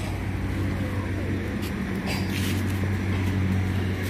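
Steady low machine hum from running machinery, even in level throughout, with a few faint ticks over it.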